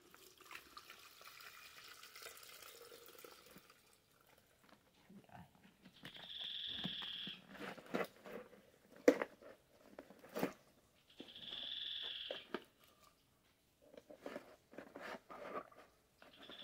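Knocks, clicks and rustles of plastic bowls and wet fibre being handled and shifted, with one sharp knock about nine seconds in. A high call lasting about a second and a half repeats about every five seconds behind it.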